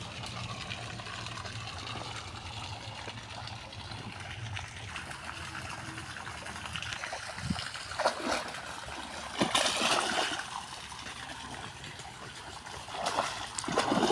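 Water trickling and splashing, with louder splashes about eight, nine and a half and thirteen seconds in.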